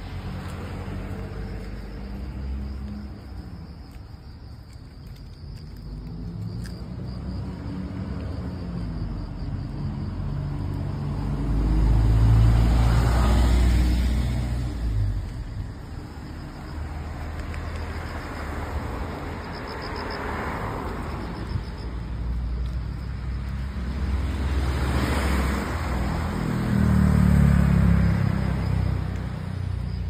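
Road traffic: cars passing one after another on a freshly resurfaced road. Tyre and engine noise swells and fades about three times, loudest about a third of the way in and again near the end, over a steady low rumble.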